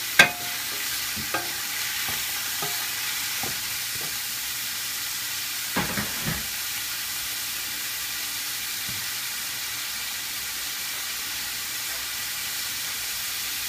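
Chopped garlic, onion and celery sizzling as they are stir-fried in a stainless steel pan. A wooden spatula knocks and scrapes against the pan a few times, loudest just at the start and again about six seconds in.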